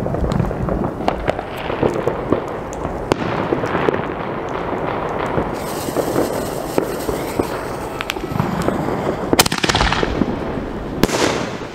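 Fireworks crackling and popping continuously all around while a reloadable firework mortar is lit. About six seconds in the shell launches from its tube with a hiss, and two loud sharp bangs follow near the end.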